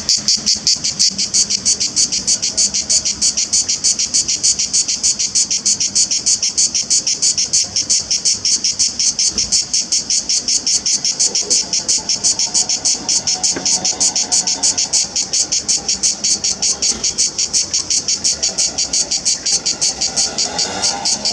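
Cicada singing: a loud, high-pitched buzzing song made of fast, even pulses, kept up without a break.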